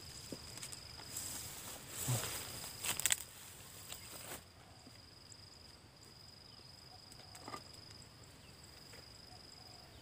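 Dry oil palm frond leaflets rustling, with a few crackles, as a hand works among them in bursts over the first four seconds, then stopping. Underneath is a steady high-pitched insect drone.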